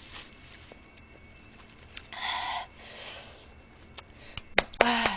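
A few light clicks and taps, a short breathy noise about two seconds in, and a brief voiced hum near the end.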